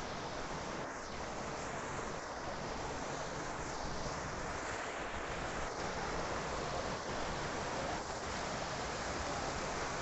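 Steady rushing of water cascading over rock at a waterfall.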